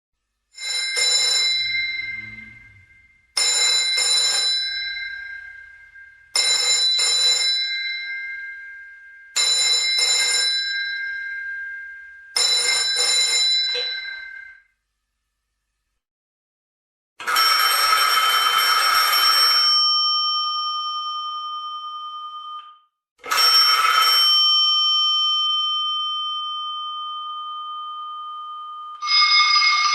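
Old-fashioned telephone's mechanical bell ringing: five short rings about three seconds apart, each a fast rattle of clapper strikes that fades away. After a pause, a differently pitched bell rings in longer bursts, twice, with another ring starting near the end.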